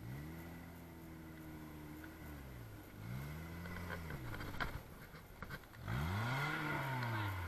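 Small off-road 4x4's engine revving up and easing off three times as it climbs a loose sand mound, the pitch rising and falling with each surge. A few sharp clicks about halfway through.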